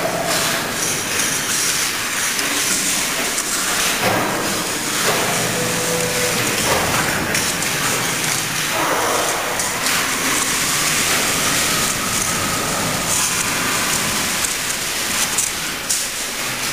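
Steady hissing factory-hall noise, with a few knocks about four, seven and nine seconds in.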